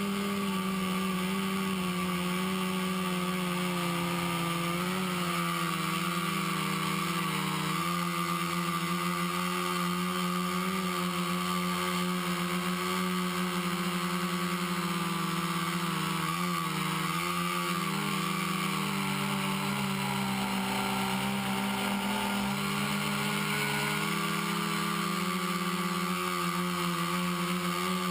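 Quadcopter's four brushless motors (Exceed RC Rocket 2215 920Kv) spinning 10-inch propellers in flight: a steady buzzing hum whose pitch wavers with throttle. The pitch drops for a few seconds about three-quarters of the way through, then rises again.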